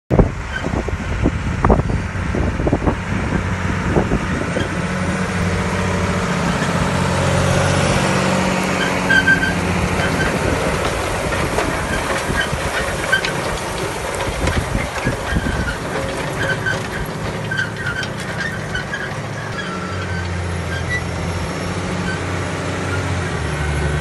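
Claas Axion tractor engine running steadily under load while pulling a Horsch Terrano 4 FX tine cultivator through the soil. A few knocks come in the first four seconds.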